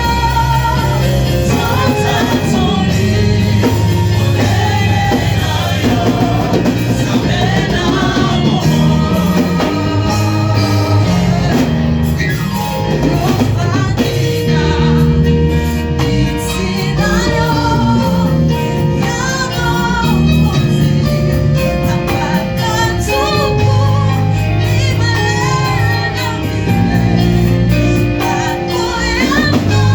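Gospel worship song: voices singing over instrumental accompaniment, with sustained low bass notes underneath.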